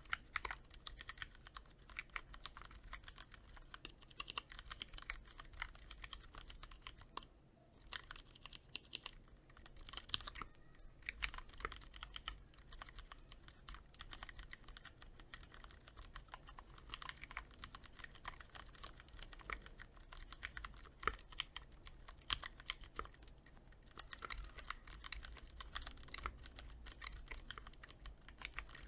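Typing on a Cherry MX Board 3.0S mechanical keyboard with Cherry MX Red linear switches, quick-lubed with Krytox 105: a steady stream of keystrokes, with short pauses about seven and ten seconds in.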